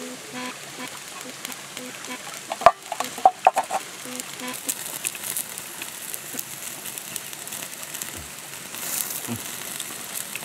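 Chicken pieces sizzling on a wire grill over a wood fire, with the fire crackling steadily; a handful of sharp, louder pops about two and a half to three and a half seconds in.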